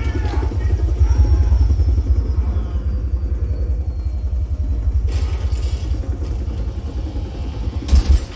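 Action-film soundtrack played loud through home-theatre speakers and subwoofers: a deep, steady low rumble. There is a brief hiss about five seconds in and a sharp loud hit near the end.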